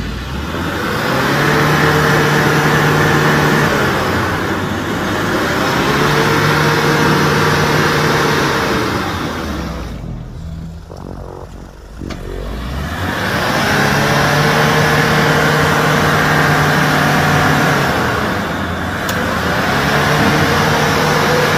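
An SUV stuck in deep mud, its engine revved hard in four long pushes, each rising in pitch and then held for a few seconds, with a lull near the middle. A steady hiss of tyres spinning and churning mud runs under each push.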